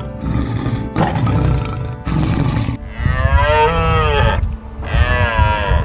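A tiger's rough growls, three bursts, then two long drawn-out calls from a deer stag, rising and falling in pitch, over background music.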